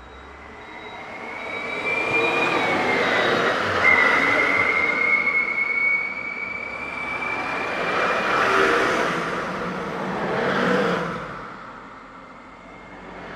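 Large vehicles passing close by: an Ashok Leyland bus and then a van drive past, their engine and tyre noise swelling and fading in several waves. A thin high whine holds steady, creeping slightly upward, through the first half and stops about eight seconds in.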